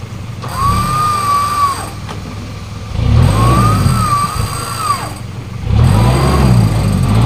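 Off-road car's engine revving up and down under load, with a high whine rising and falling alongside it in two stretches.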